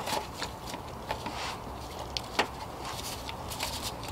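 Scattered light clicks and taps of a screwdriver and gloved hands working a bolt on the engine's auxiliary pump bracket.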